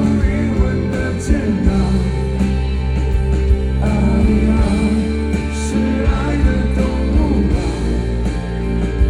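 A rock band playing with a singer: guitars, bass and drums with regular drum hits under a sung melody.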